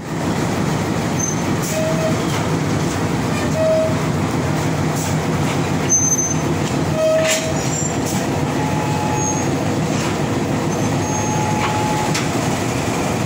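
Diesel locomotive engine idling steadily at close range, with a few brief squeaks and a light clink as the coupling gear is worked.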